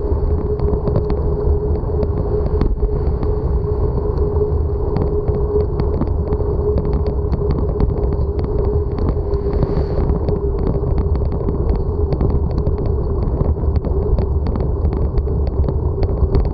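Bicycle riding at speed on an asphalt cycle path: steady rolling and wind rumble, with a constant low whine and fine ticking over it.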